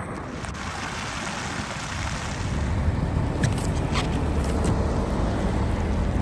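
Steady rushing noise with a vehicle's low rumble building about two seconds in, and a few faint clicks.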